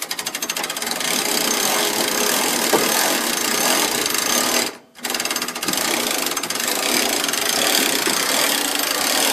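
Electric winch (2,500 lb, working through a snatch block) running under load with a fast, even rattle, pulling a heavy car up a trailer ramp. It stops for a moment about halfway through, then starts again.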